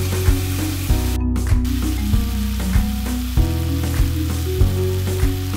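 Background music: a mellow instrumental track with a steady beat about every 0.6 seconds, over an even crackling hiss.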